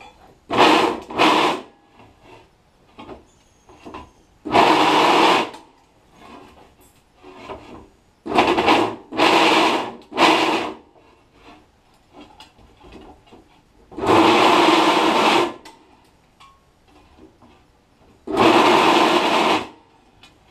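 Drill press bit cutting through the holes of an aluminium plate in about eight separate bursts, each half a second to a second and a half long, with quieter pauses between them while the plate is turned to the next hole.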